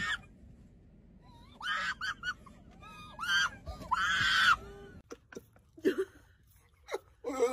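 Short, high-pitched shrieks and gasping cries from people, in three bursts with wavering pitch, followed by a few faint clicks.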